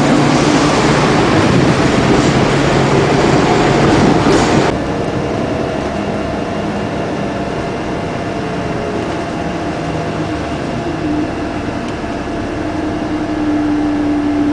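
Loud street traffic noise that cuts off abruptly about five seconds in, giving way to the quieter steady running of a moving vehicle heard from inside, with a hum that grows louder near the end.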